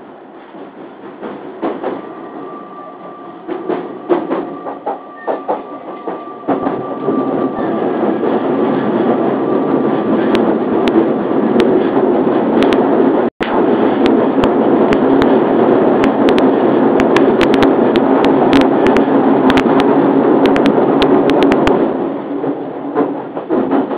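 Running noise inside an Odakyu 3000-series electric commuter train: a steady rumble that grows louder after a few seconds, with many sharp clicks of the wheels on the rails, then eases near the end.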